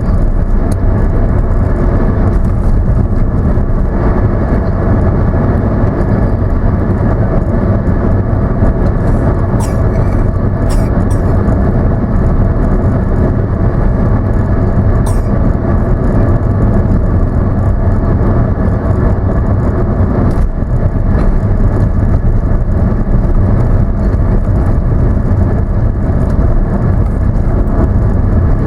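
Car driving at a steady speed: loud, even engine and road noise, with a few faint clicks scattered through it.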